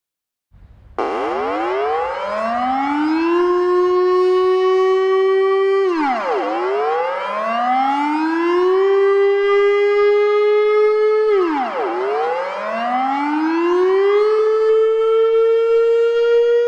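Dutch public warning siren wailing after about a second of silence. Its pitch climbs over a couple of seconds, holds, then drops sharply, repeating about every five and a half seconds.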